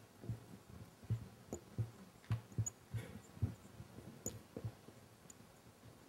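Marker pen writing on a whiteboard: faint, irregular taps and knocks, about two a second, as the pen strokes and lifts on the board's surface.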